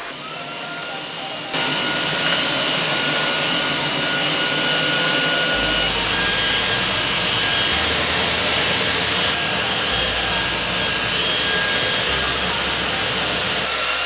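Tineco cordless wet-dry vacuum mop switched on and running as it is pushed across a tile floor: a steady rush of suction air with a high motor whine that climbs briefly as it starts, then gets louder about a second and a half in and holds.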